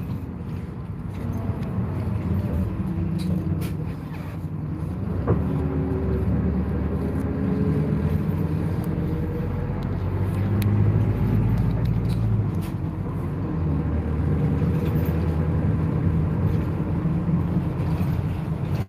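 Bus engine and road noise heard from inside the cabin, with the engine note rising and falling as the bus drives, and a few light rattles and clicks.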